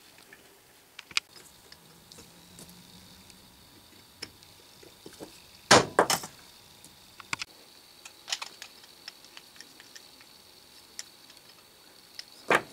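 Scattered light metal clicks and taps from hand work on a small steel vise slide plate: a tap turned in a T-handle tap wrench, then small screws driven with a screwdriver. A pair of sharper metal clacks comes about six seconds in and another near the end.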